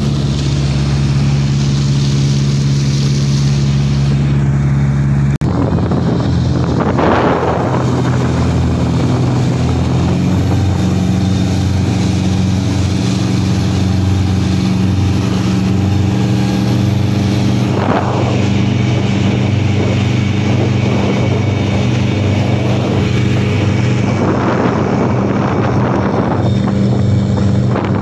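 Wooden pompong motorboat's engine running steadily at speed, its note shifting abruptly about five seconds in, with water rushing along the hull and now and then swelling louder.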